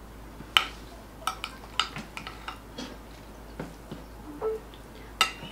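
Metal spoon and fork clinking and scraping on plates while eating: a run of sharp, irregular clicks, the loudest about half a second in and near the end.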